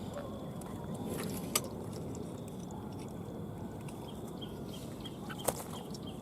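Steady rustling noise with two sharp clicks, one about a second and a half in and one near the end. A quick run of short, high chirps from a small bird comes over the last two seconds.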